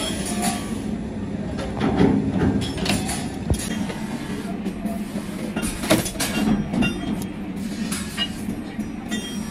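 Sheet steel being cut into trowel-blade blanks on a bench shear: irregular sharp metal clanks as the blade comes down and cut pieces drop onto the metal pile, over a steady low hum.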